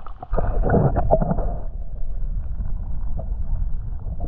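Lake water heard through a camera held underwater: a muffled, dull rumble with no high end. It is busy and irregular with small knocks for the first second and a half, then settles into a steadier low wash.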